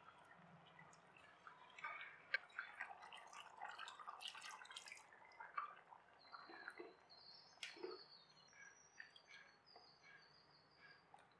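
Cooked dal dropping into a pan of sambar and being stirred in with a spatula: quiet wet plops, squelches and small clicks, busiest in the first half. Faint high short chirps come in during the second half.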